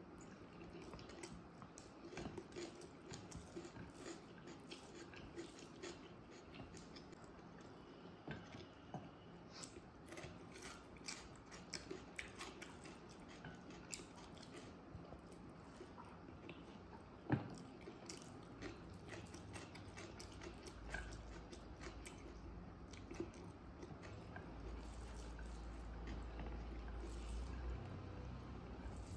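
Close-up chewing of biryani rice and curry, with soft crackles and light clicks as fingers work the rice on a ceramic plate. One sharper click comes a little past halfway, and a low rumble rises in the last third.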